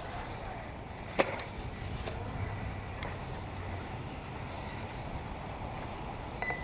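Wind rumbling on the microphone over the faint, rising and falling whine of 1/10-scale 4WD radio-controlled buggies running on a dirt track, with a single sharp click about a second in.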